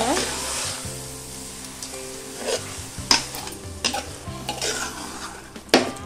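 Mutton pieces sizzling in hot oil and masala in a pressure cooker while a spoon stirs them, with repeated scrapes and knocks of the spoon against the pot; the loudest knock comes near the end.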